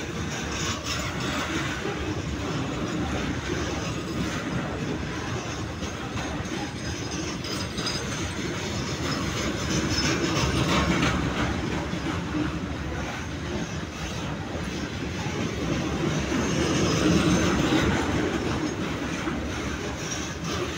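Freight train of covered hopper wagons rolling past close by: a steady rumble of steel wheels on the rails with rattling and clicking. It swells louder twice, about ten seconds in and again near seventeen seconds.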